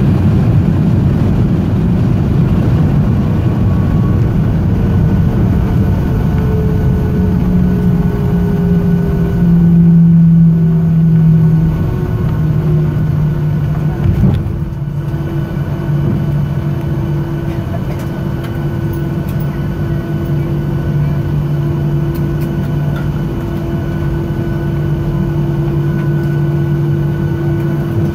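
Cabin noise inside a Boeing 737-700 with CFM56-7B engines during the landing rollout, heard from a seat over the wing. A loud roar of engines and wheels on the runway eases as the jet slows, with a whine that falls in pitch over several seconds. Steady engine hums follow, and there is a single short knock about halfway through.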